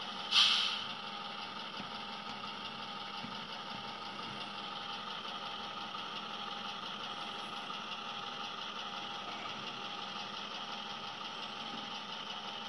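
Tsunami 2 sound decoder in an HO scale model GP7 playing a diesel locomotive's prime mover at low throttle through the model's small speaker, as the model runs along the track. About half a second in, a short loud burst of hiss cuts in and fades within half a second.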